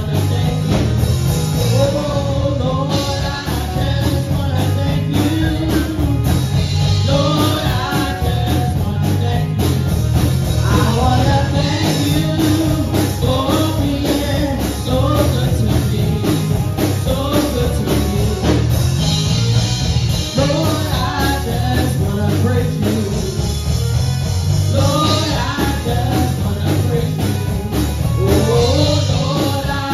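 Church worship band playing an upbeat rock-style song with a steady beat, with singing over it.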